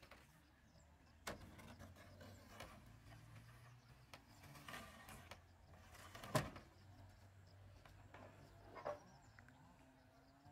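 A few sharp wooden knocks and clatters as long wooden battens are picked up and handled, the loudest about six seconds in, over a faint low hum.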